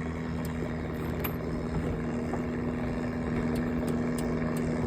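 A small boat's engine running steadily with an even hum, growing slightly louder.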